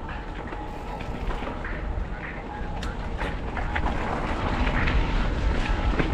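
Mountain bike being ridden on a trail, heard through a GoPro's microphone: heavy wind rumble that swells toward the end, with tyre noise and the bike's rattles and occasional sharp clacks.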